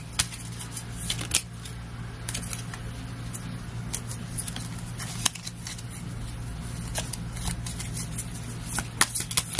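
A deck of Lenormand cards handled and shuffled by hand: scattered crisp card snaps and taps, bunched in the first second or so and again near the end, over a steady low hum.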